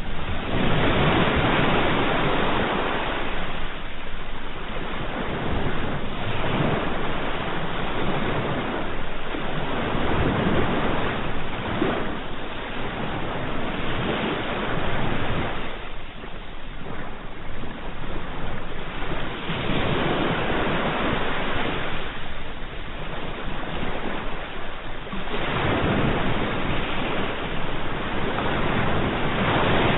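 Ocean waves breaking and washing on the shore, a continuous rushing that swells and ebbs every few seconds.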